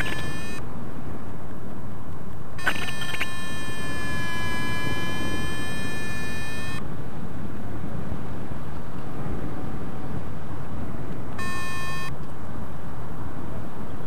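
Steady wind rushing over the microphone in paraglider flight, with a variometer sounding long steady electronic tones: one ends just after the start, one about three seconds in lasts about four seconds, and a short one comes near the end.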